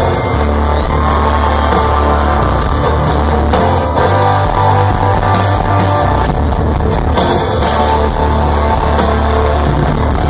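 Live country-rock band playing an instrumental stretch, electric guitars over bass and drums, loud and steady with no clear singing.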